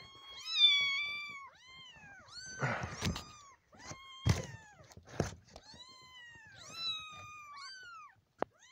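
A litter of 25-day-old kittens mewing loudly and almost without pause: a dozen or so high, rising-then-falling cries from several kittens, overlapping one another. A few knocks and rustles come about three, four and five seconds in.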